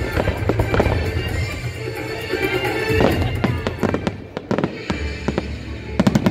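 Fireworks display: dense, rapid crackling and popping over a low rumble of bursts, with a fresh flurry of crackles near the end.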